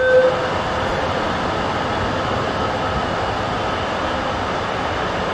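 Steady running noise inside an Alstom Metropolis metro car under way. A held electronic tone cuts off just after the start.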